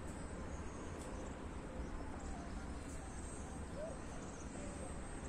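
Steady wind rumble on the microphone, with a few faint, short rising and falling tones in the distance.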